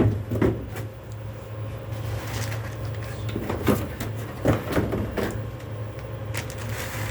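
Box and packaging being handled while a piece of equipment is unboxed: scattered knocks, scrapes and rustles at irregular moments over a steady low hum.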